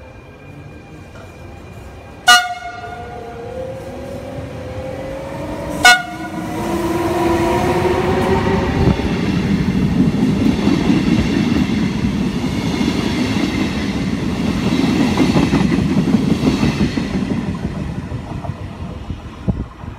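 Trenitalia regional train hauled by an E.464 electric locomotive, giving two short horn toots about three and a half seconds apart as it approaches. It then runs through the station at speed: the rumble and clatter of the coaches passing close swells, holds for several seconds and fades near the end.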